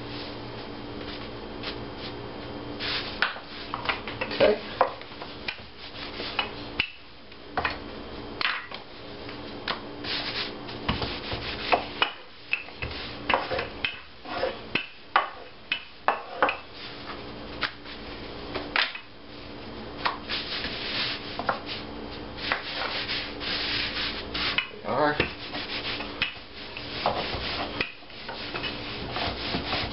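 Wooden rolling pin rolling dough back and forth on a wooden board: a rubbing stroke repeated over and over at an uneven pace, with short knocks in between.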